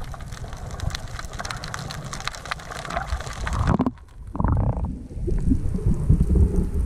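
Underwater sound heard through a camera's waterproof housing: muffled water movement with a crackle of small clicks, turning into heavier low churning from about four seconds in.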